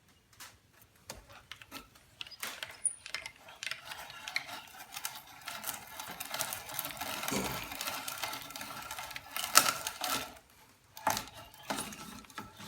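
A hand brace turning an adjustable bit through wood: a steady rasping cut with many small clicks, starting about two seconds in and stopping about ten seconds in. A few separate clicks and knocks follow near the end.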